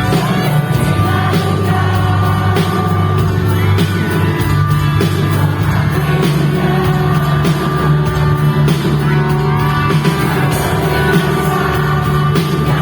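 A live pop-rock band playing a song with a singer, loud and continuous.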